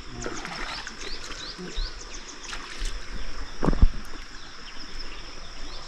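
Rural outdoor ambience of repeated short, high bird chirps over a steady high insect drone, with one dull thump a little under four seconds in.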